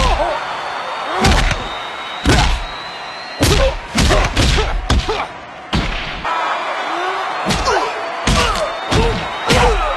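Staged fist fight: about a dozen heavy punch and body-slam impacts land in an uneven series, several in quick succession near the middle, with grunts and shouts between them.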